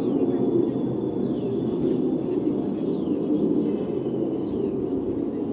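A steady low drone of unknown origin, the 'strange sound', runs throughout and is the loudest thing. Over it a bird repeats a short falling whistle about every second and a half.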